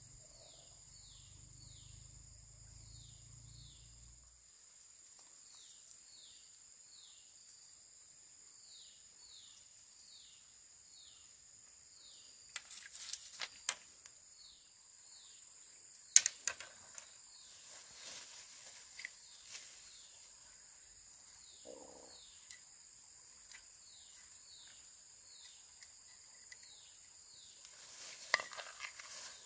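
Insects calling outdoors: a steady high-pitched drone, with a short falling chirp repeated about once or twice a second. A few sharp clicks come around the middle and near the end.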